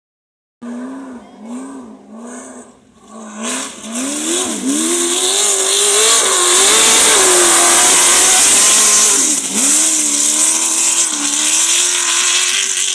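Off-road race buggy's engine revving in short throttle blips, then accelerating hard and running loud at high revs as it passes, with a strong hiss of sand and wind. It settles to a steadier drone near the end.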